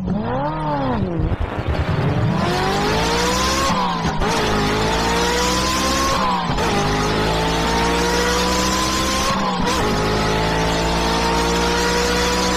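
An engine revving up and down twice, then accelerating through the gears: its pitch climbs steadily and drops back at shifts about 4, 6.5 and 10 seconds in.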